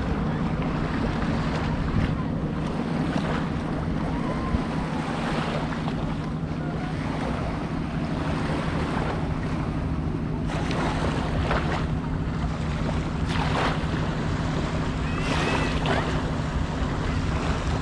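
Small waves lapping at a sandy shoreline, with wind noise on the microphone and a steady low hum underneath. A few brief louder swishes come in the second half.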